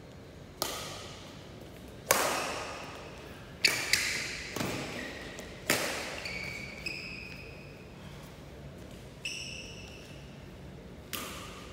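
Badminton rally: rackets smacking a shuttlecock, sharp hits about every one to two seconds that ring on in the large hall, with shoes squeaking on the court floor between shots.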